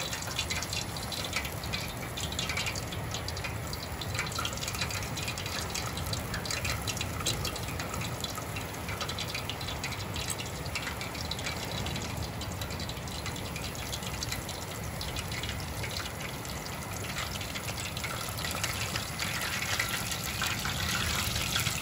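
Floured fish pieces deep-frying in oil in an enamel pot on a camp stove: a steady sizzle with constant fine crackling.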